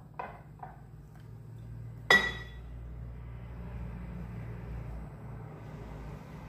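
Kitchenware handled while a chocolate sponge cake is brushed with syrup: a few light taps, then one sharp clink that rings briefly, about two seconds in.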